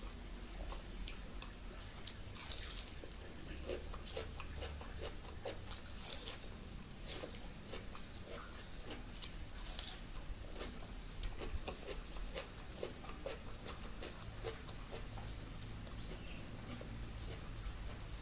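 A person chewing food close to the microphone, with wet mouth clicks throughout and three louder, short crunchy bites.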